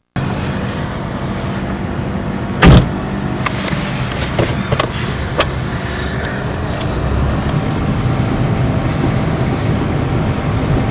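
Chevy Cavalier's engine running, heard as a steady hum inside the car, with one loud, short hiccup-cough about two and a half seconds in, followed by a few faint clicks.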